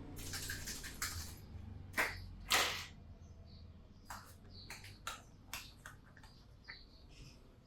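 Hands working over a head in a massage: a soft rustling through the hair at first, then two sharper hits about two seconds in, followed by scattered light clicks and taps.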